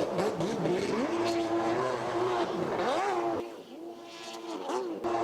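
Racing stand-up jet ski engine revving, its pitch rising and falling as the throttle is worked. It drops away for about a second and a half partway through, then picks up again.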